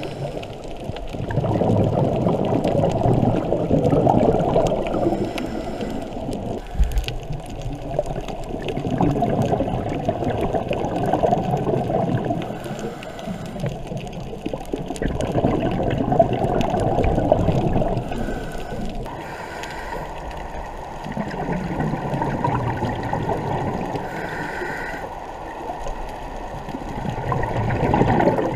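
Underwater bubbling and gurgling of a scuba diver's exhaled bubbles, swelling and fading in surges every few seconds.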